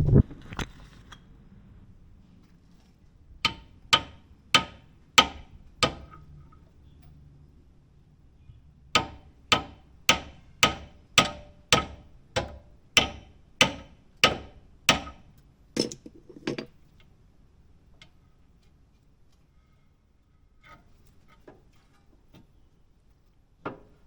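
Hammer blows on steel suspension parts during a ball joint replacement. A heavy knock comes first, then a run of five strikes, a pause, and about a dozen more at a steady pace, each with a short metallic ring. A few light taps follow near the end.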